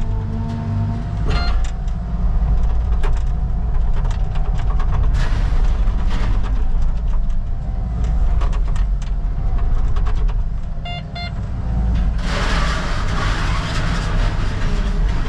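Caterpillar 306 mini excavator's diesel engine running steadily while it crunches and cracks demolition debris, with many sharp snaps and knocks. About twelve seconds in, a loud rushing crash of breaking material lasts a few seconds.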